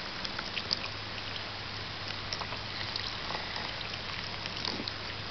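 Water running from a garden hose onto wet mud and a small toy train, a steady trickle with scattered little splashes and drips.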